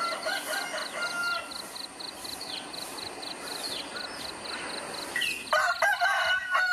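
Small birds chirping over a fast, high pulsing call, about four pulses a second. About five and a half seconds in, a rooster crows loudly.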